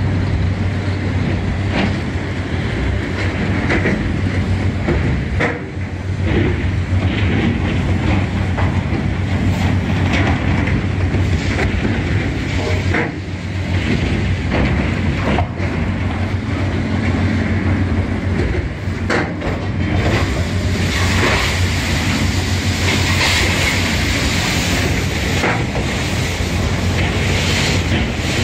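Crane-mounted hydraulic rotary-brush machine running inside an open gondola wagon, scrubbing out leftover coal. A steady low hum runs under continual clattering and scraping, which turns brighter and harsher about two-thirds of the way through.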